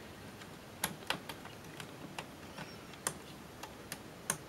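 Irregular small clicks and taps of plastic and metal parts being handled as a circuit board and its plastic frame are worked back into a Sony broadcast Trinitron monitor's chassis. A few sharper clicks stand out, one about a second in and another near the end.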